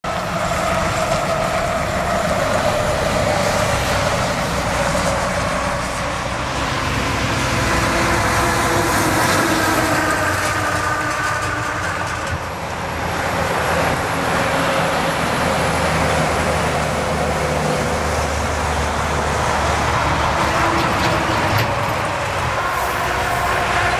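Diesel trucks and a bus passing on a highway: steady engine drone and tyre noise that dips briefly about halfway through.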